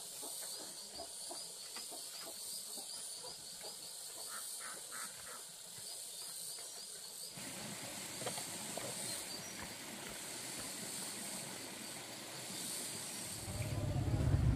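Rural outdoor ambience: a steady high hiss with rapid, evenly repeated high chirps, changing abruptly to a broader noisy hiss about halfway through. Near the end a motor engine starts up and grows louder.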